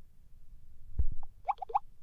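Xiaomi MIUI 12 phone tone of a few short, quick, rising blips like water drops, after a low thump about a second in.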